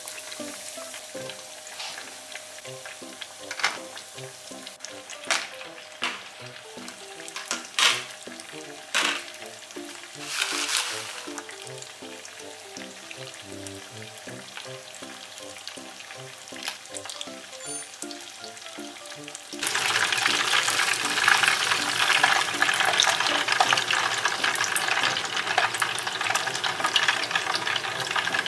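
Breaded pork cutlet deep-frying in oil: a loud, steady sizzle that starts suddenly about two-thirds of the way through, over soft background music. Before that there is only the music, with scattered clicks and taps.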